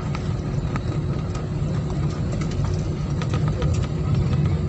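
Steady low rumble heard inside an airliner cabin as the plane rolls along the ground after landing, from the engines and the wheels on the tarmac, with a few faint clicks and rattles.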